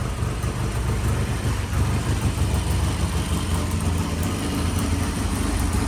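Vintage British motorcycle engine idling steadily through new stock mufflers.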